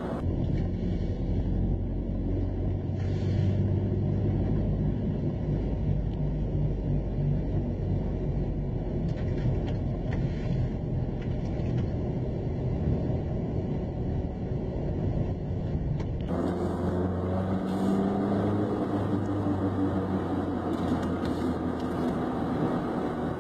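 Nissan Tiida sedan being driven in gear, with a steady engine and road drone; the sound changes abruptly about two-thirds of the way through. The owner reports an unbalanced-sounding, rhythmic wah-like noise that appears only once the car is warm, between about 2500 and 3500 rpm in gear, follows wheel speed and stops when the clutch is pressed; its source is still unidentified.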